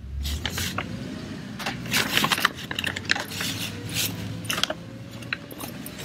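Paper grocery bag crinkling and rustling in quick irregular bursts as a dog rummages head-first inside it for a treat.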